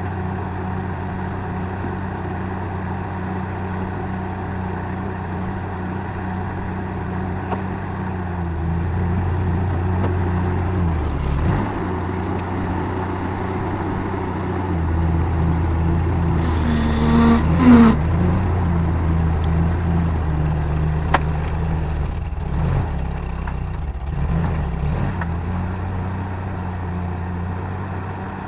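A motor engine running steadily, its speed rising and falling twice. A brief rising squeal and a clatter come about two-thirds of the way through, with a sharp click shortly after.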